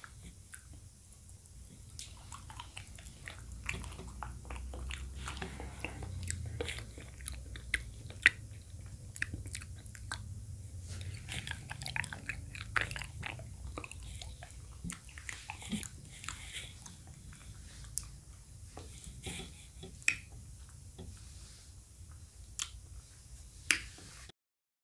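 Close-miked chewing with wet mouth sounds: a steady stream of small moist clicks and smacks as a soft bite of food is worked in the mouth.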